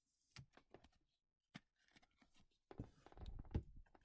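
Trading cards and packaging being handled: a few faint light clicks, then a louder patch of rustling and shuffling about three quarters of the way in.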